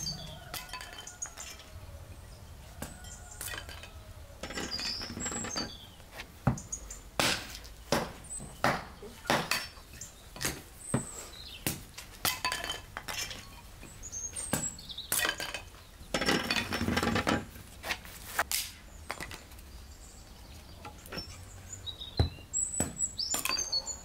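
Hatchet splitting thin wooden slats into kindling on concrete: a run of sharp, irregular chops and knocks that begins a few seconds in. Birds chirp briefly near the start and near the end.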